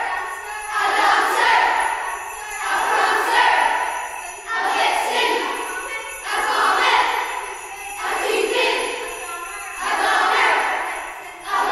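Jingle bells shaken in rhythmic swells, about one every two seconds, each building up and fading away.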